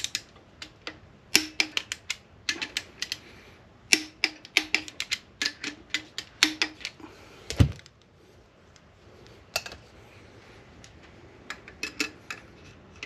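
Ratchet of a torque wrench clicking in quick runs as the connecting-rod bolts of a Honda K24 engine block are tightened on their second torque pass. About seven and a half seconds in comes one heavier knock, and near the end a few light metal clicks as a dial stretch gauge is set on a rod bolt.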